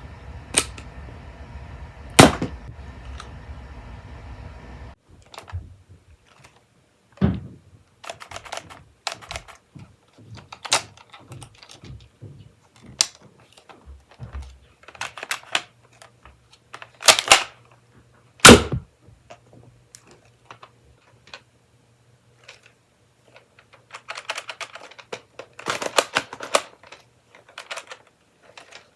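Plastic clicks, clacks and snaps of Nerf blasters being handled and reloaded, with a few sharp louder snaps among them and a quicker run of small clicks near the end. A low steady hum stops about five seconds in.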